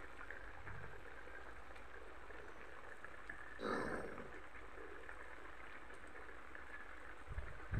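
Beef stew bubbling as it simmers in a wok, a steady faint bubbling, with one short louder rush of noise a little over three and a half seconds in.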